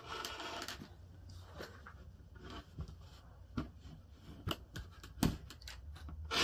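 Rotary cutter rolling through cotton fabric along a clear plastic ruler on a cutting mat, a rough scrape in the first second, then scattered light clicks and knocks as the cutter and ruler are handled.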